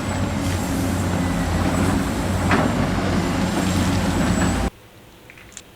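Recorded truck engine sound effect, running steadily for about four and a half seconds, then cutting off suddenly. It is followed by a few faint clicks.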